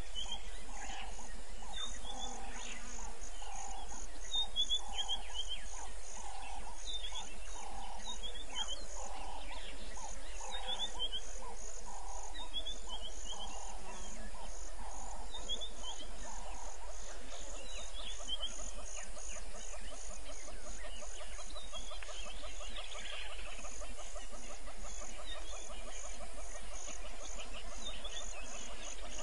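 Evening bush chorus of insects and birds: a high insect pulsing in a steady rhythm about twice a second, a lower call repeated about once a second, and short bird chirps every couple of seconds. A bit past halfway the lower calls give way to a fast buzzing trill.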